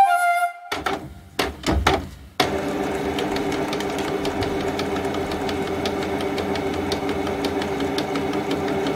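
A few clicks and knocks, then from about two and a half seconds in a homemade drawing machine built from upcycled parts runs with a steady motor hum and faint fast ticking as its motors drive the pen carriage across the paper.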